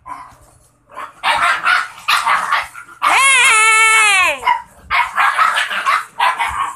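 Puppies play-fighting: rough growling barks, then one long high whine of about a second and a half that drops in pitch as it ends, then more growling barks.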